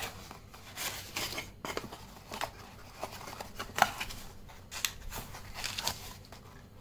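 Cardboard box being opened and unpacked by hand, with a paper instruction leaflet rustling: a run of irregular scrapes, rustles and light knocks, the sharpest about four seconds in.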